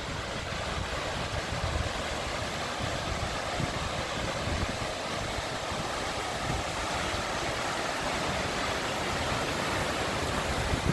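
A tall waterfall plunging onto rock: a steady rush of falling water that grows slightly louder as it is approached.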